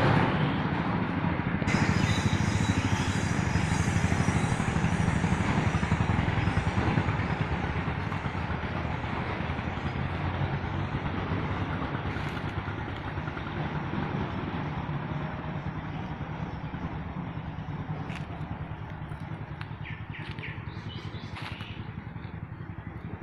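A motor vehicle's engine running, loudest at first and fading steadily away, with a few short high sounds near the end.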